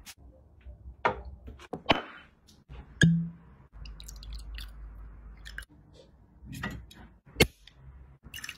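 Short clinks and knocks of a bottle and glassware being handled, with liquid poured from a bottle into a glass tumbler in the middle stretch. Near the end a drink can's pull-tab is cracked open.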